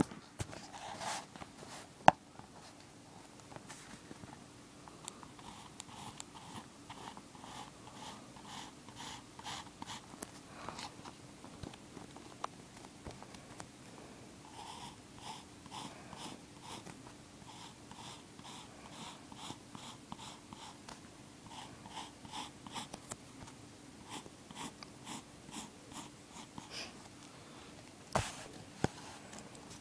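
Pencil scratching on paper in short, repeated strokes, about one to two a second, as a circle is sketched. A sharp knock comes about two seconds in, and a few knocks near the end.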